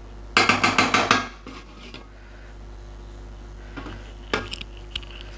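Steel spoon scraping and clinking against the side of a metal cooking pot while stirring half-cooked biryani rice. There is a quick run of clattering strokes about half a second in, then a few more scrapes near the end.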